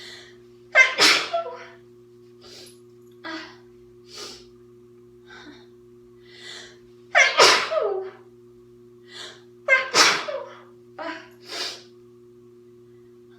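A girl sneezing loudly three times, about a second in, around seven seconds in and again at ten seconds, with shorter, quieter breaths between the sneezes. A faint steady hum runs underneath.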